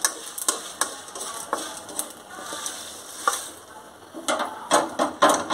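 Spatula stirring dried red chillies roasting in an aluminium kadai: irregular scrapes and sharp clicks against the pan, busier near the end.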